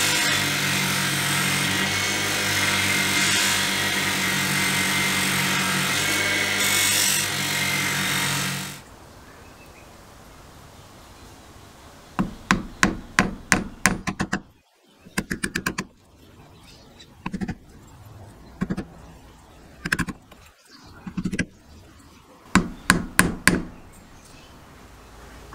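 A bench-mounted wheel runs steadily while a brass burner tube is polished against it, then stops about eight seconds in. After that come short bursts of quick back-and-forth scraping as a thin wooden stick works the slots of the brass tube, several strokes to each burst, repeated in groups.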